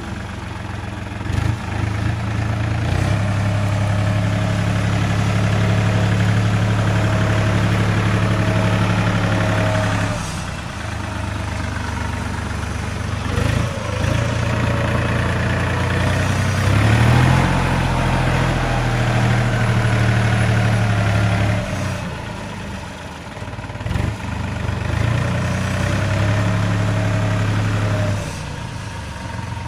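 New Holland 4710 tractor's three-cylinder diesel engine running under load in deep paddy mud, its pitch and level stepping up and falling back several times as the throttle is opened and eased.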